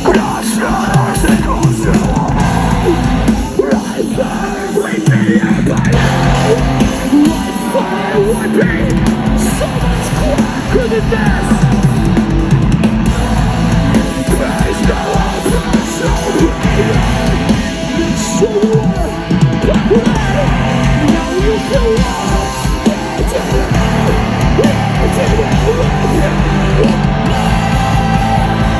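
Loud live heavy rock music from a band playing, with yelled vocals over the instruments.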